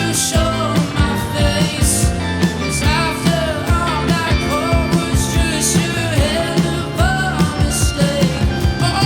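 A live rock band playing: drums keep a steady beat under bass and guitars, and a sung melody line comes and goes.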